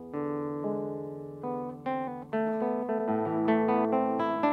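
Background music: a guitar playing a series of plucked notes and chords, each note starting sharply and fading.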